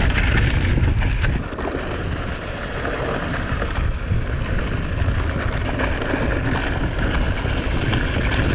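Wind buffeting the microphone over the rolling noise of a mountain bike descending a loose, sandy and stony trail, with scattered small clicks and knocks from the tyres and bike.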